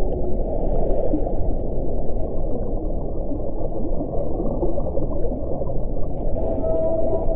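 Underwater recording of whale calls. A dense, crackling low noise fills most of the stretch, with a faint pitched moan at the very start and pitched calls coming back near the end.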